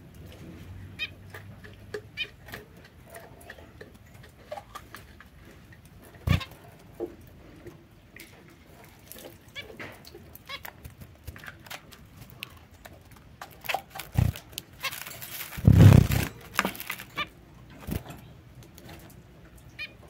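Zebra finches giving short nasal calls, scattered irregularly, with thin clicks between them and one louder burst of sound about sixteen seconds in.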